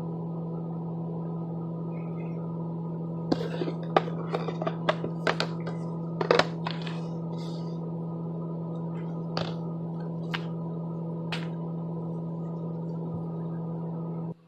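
Light metallic clicks and clinks from handling a wristwatch on a NATO strap: a quick cluster, then three single clicks about a second apart. A steady electrical hum sits underneath and cuts off abruptly at the very end.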